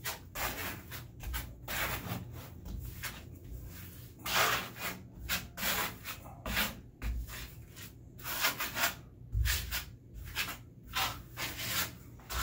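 Hand trowel spreading microcement base coat over a wall, scraping across the surface in quick repeated strokes, a couple a second.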